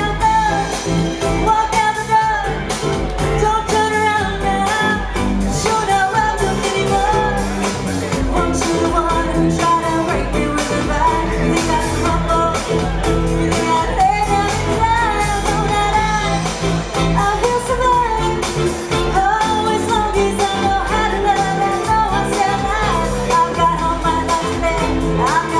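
Live pop-rock band playing: a woman singing lead over electric guitar, bass guitar and drums with a steady beat.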